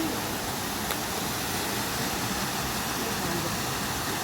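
Steady, even rush of a mountain waterfall's falling water.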